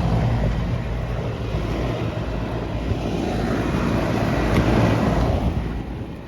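Outdoor air-conditioner condensing unit running: a steady low compressor hum under the rush of its condenser fan. It fades a little before the end.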